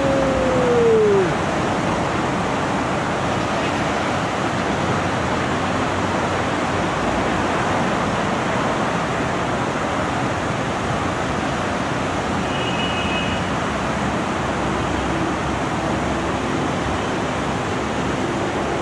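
Steady rushing noise with no clear pitch, which starts as a falling tone with overtones fades out in the first second; a faint high tone pair sounds briefly about two-thirds of the way through.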